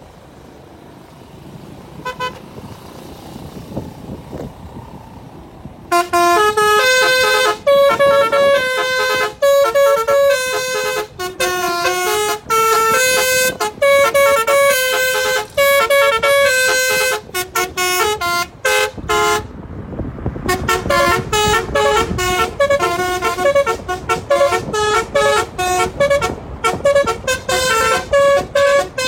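Multi-tone telolet horn on a car playing a rapid tune of stepped notes. A short toot comes about two seconds in, and the melody starts loud about six seconds in. It stops briefly about two-thirds of the way through, then starts up again.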